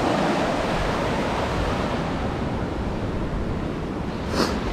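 Caribbean surf washing up a sandy beach, a steady rush of breaking waves. A short knock sounds near the end.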